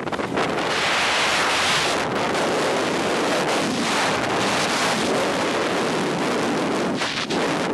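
Wind rushing over the microphone of a camera carried down a ski slope at speed, mixed with the hiss and scrape of edges carving on hard-packed snow. The hiss swells in surges, the strongest about a second in.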